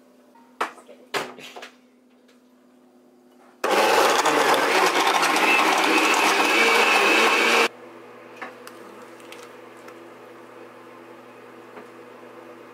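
Countertop glass-jar blender running for about four seconds, blending a thick protein shake, then cutting off sharply. A few clicks come before it, and a steady low hum follows.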